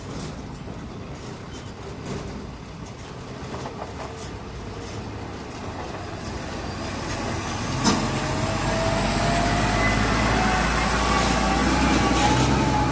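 Diesel engine of a Tata Prima tractor unit hauling a shipping container, growing louder as it approaches and passes close by. A single sharp knock comes about eight seconds in, after which a whine slowly rises in pitch over the low engine rumble.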